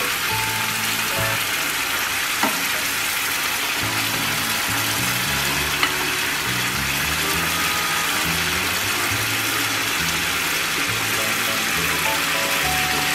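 Chicken curry simmering in its gravy in a wok, a steady loud sizzling hiss, with two short sharp clicks about two and a half and six seconds in. Background music with low changing notes plays throughout.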